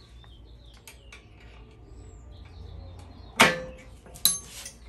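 Metal hand tools handled on a workbench: faint clicks, then a loud sharp metal clank about three and a half seconds in that rings briefly, and a lighter, higher metallic click just under a second later.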